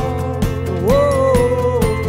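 A song playing: a voice slides up into one long held note over a steady beat of about two a second.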